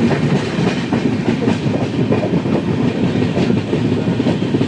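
Passenger train running along the track: a steady rumble with the wheels clattering irregularly over rail joints.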